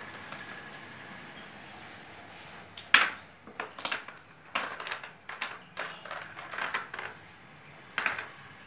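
Small wooden placemat pieces clicking and clattering against each other and onto cardboard as they are handled, about a dozen sharp knocks in the second half, the loudest about three seconds in.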